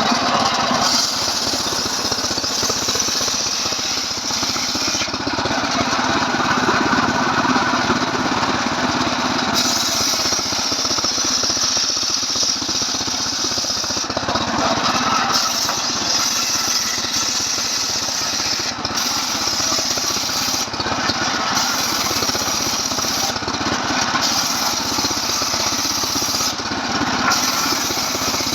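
Stihl MS 381 two-stroke chainsaw running under load, ripping a log lengthwise. It runs without a break, and its pitch shifts every few seconds.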